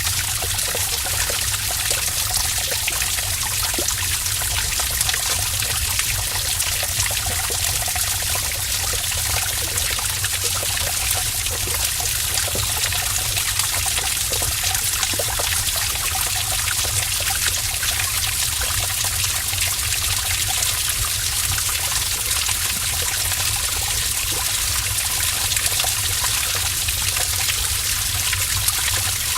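Stream of water trickling and splashing in a cave, a steady running-water sound with many small drips and splashes.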